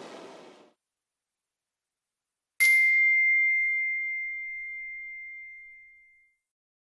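A single bright ding, a chime sound effect that rings on one clear tone and slowly fades away over about three and a half seconds. Before it, a rushing noise dies out within the first second.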